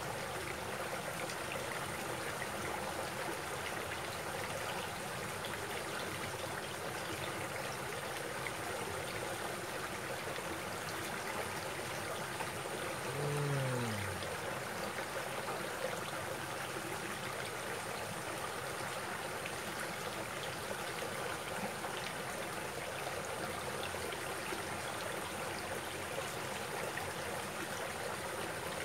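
Shallow rocky stream running over stones in small cascades: a steady rush of water, with one short falling tone about halfway through.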